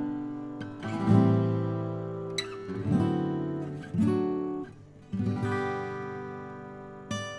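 Acoustic guitar chords strummed and left to ring, a new chord struck about every second or two and fading away between strikes.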